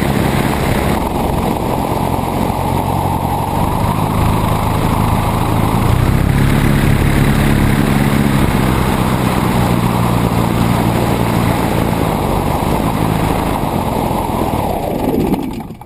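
Biplane's piston engine and propeller running steadily as the aircraft taxis on grass, with rushing air noise over the wing-mounted microphone; the engine gets a little louder about six seconds in, and the sound fades out near the end.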